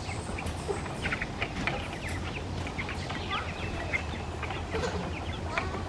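Birds chirping and peeping: many short, high calls scattered throughout, over a steady low hum.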